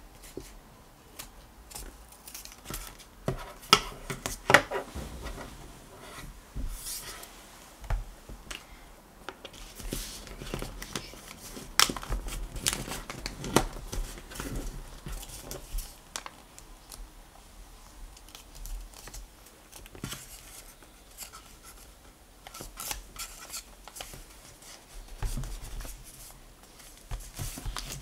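Small craft scissors snipping through paper in short, irregular cuts, followed by softer rustling and creasing as the cut paper is handled and folded.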